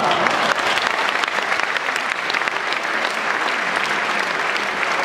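Large stadium crowd applauding: dense, steady clapping from many hands.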